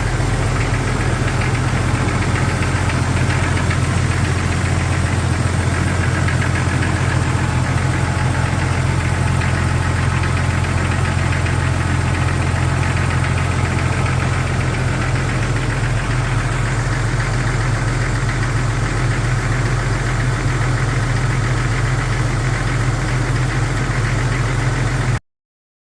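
1999 Jeep Cherokee XJ engine idling steadily with a rapid knock: piston slap from worn pistons, before the piston swap. The engine's low note shifts about 15 seconds in, and the sound cuts off abruptly near the end.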